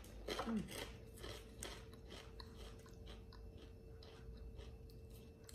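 Close-up crunchy chewing of a mouthful of crispy toasted rice cracker (bánh tráng) with salad. The crunches are strongest in the first second or two and then grow softer and sparser.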